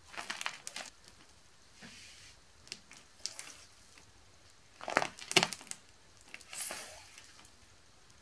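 Bead-studded slime being pressed flat by a bare hand and pulled up into stretching strands. It gives clusters of small sticky pops and crackles, the loudest about five seconds in.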